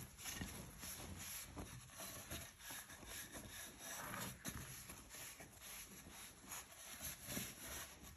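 Cotton rag rubbing over an oil-soaked wooden board, with soft knocks as the board is shifted: excess wood oil being polished off the surface. Faint and irregular.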